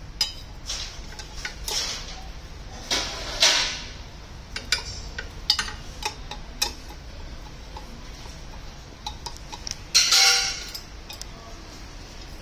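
Metal-on-metal clicks and clinks from a T-handle wrench turning bolts on the steel starting-wheel hub of a diesel engine's flywheel, irregular and spaced out, with a louder ringing clatter about ten seconds in.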